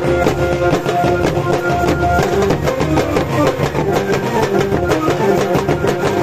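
Live folk drumming: large frame drums struck with sticks and barrel drums beaten fast and continuously, with a melody of held notes running over the beat.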